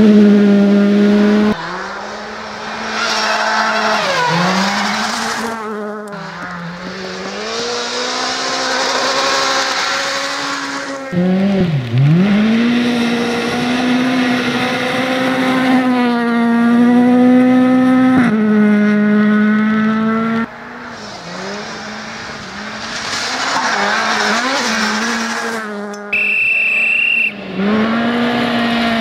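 Ford Fiesta R2 rally car's 1.6-litre four-cylinder engine revving hard on a gravel stage, the pitch climbing and dropping sharply with gear changes and lifts. Several passes are cut together, with gravel spray hissing under the engine.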